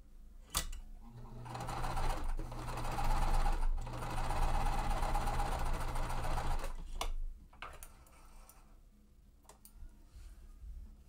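Sewing machine stitching a seam in a steady run of about five seconds, with a brief pause partway through. A few sharp clicks come just before and after the run.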